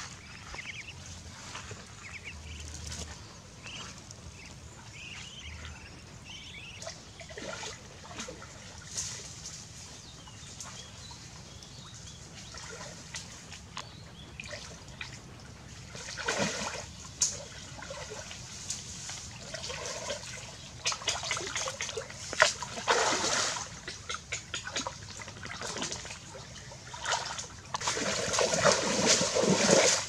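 Ducklings peeping faintly at first, then water splashing and sloshing as hands work through a shallow muddy stream, getting louder near the end.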